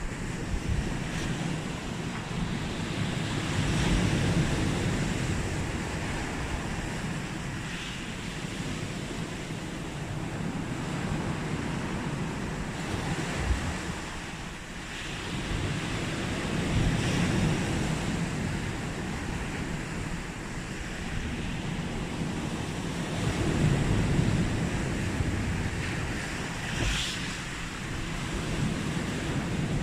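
Sea waves breaking and washing onto the shore, the surf swelling louder every several seconds.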